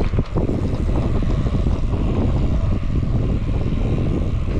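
Wind buffeting the microphone of a camera mounted on a moving road bicycle, a steady low rushing rumble.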